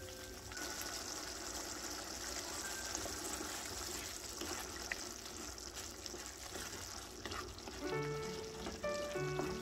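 Jjajang sauce bubbling and sizzling in a frying pan as a wooden spatula stirs it. Background music with a melody plays at the very start and comes back about eight seconds in.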